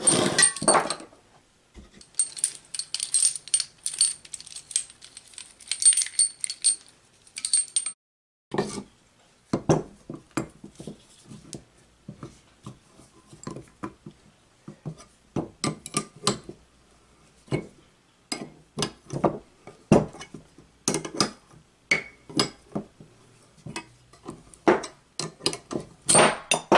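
Steel jaw-type gear puller jangling and clinking as it is handled and fitted over a small electric motor's rotor shaft. From about a third of the way in, a long run of irregular metallic clicks and knocks follows as the puller's screw is turned with a wrench to draw the ball bearing off the shaft.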